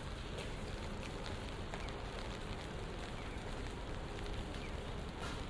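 Light rain falling on wet pavement: a steady hiss with scattered ticks of individual drops.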